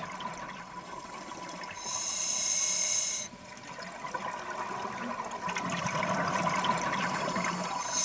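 Underwater sound of a scuba diver breathing through a regulator: a steady low hiss with two louder hissing breaths, one about two seconds in and one near the end.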